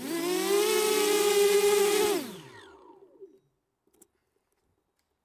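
Mini quadcopter's electric motors and propellers spinning up to a steady whine with a few close pitches beating against each other, heard from the GoPro on its nose; about two seconds in they wind down, the pitch falling away until they stop.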